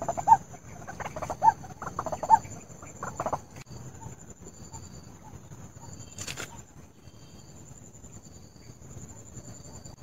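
White-breasted waterhen calling: a loud run of repeated clucking calls in the first three and a half seconds, then fainter, scattered calls.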